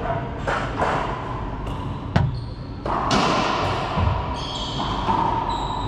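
Racquetball play: the ball bounced on the hardwood floor before the serve, then a sharp crack of the racquet striking the ball about two seconds in, the loudest sound, followed by thuds of the ball and short high squeaks of sneakers on the floor.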